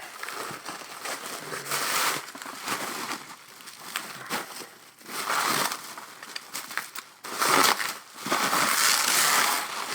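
Plastic packaging being pulled apart and crumpled by hand: irregular loud bursts of crinkling and crackling with sharp little clicks, the loudest stretches near the middle and toward the end.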